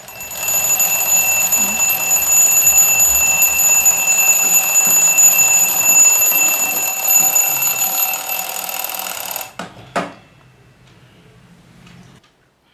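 Alarm clock ringing loudly and steadily for about nine and a half seconds, then cutting off, followed a moment later by a single sharp knock.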